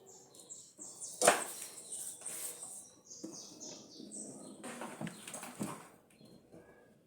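Handling noise from refitting drill parts: a sharp plastic click about a second in, then lighter knocks and rustles. Behind it a small bird chirps in quick runs of short, high, falling notes.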